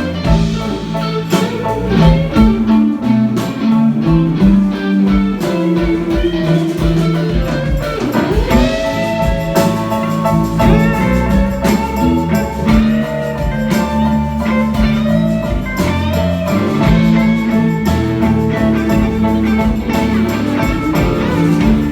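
Live band playing an instrumental passage with guitar to the fore over bass and drums, including a bent note about eight seconds in.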